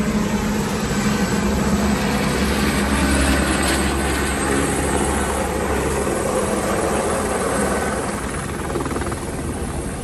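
Light helicopter flying low over a helipad: steady rotor and engine noise, loudest in the first half and easing off slightly toward the end.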